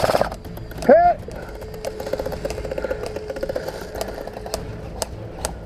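The end of a full-auto airsoft gun burst, then a short loud shout about a second in. After it comes a steady hum, with about four sharp snaps of single shots roughly half a second apart near the end.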